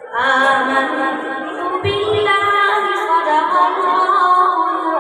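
A boy's voice reciting the Quran in a slow, melodic style, drawing out long held notes with wavering ornamented turns, amplified through a microphone. The voice comes in just after a brief pause at the start.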